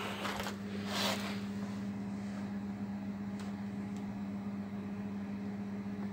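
Steady low hum of running electronic equipment, one constant tone with a fainter higher one above it, with a brief rustle about a second in.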